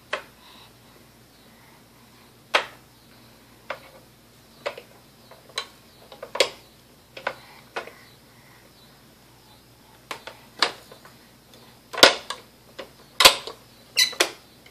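Irregular clicks and knocks of a plastic push-button pop-up toy being pressed and tapped by a baby's hands, more than a dozen in all, the loudest near the end.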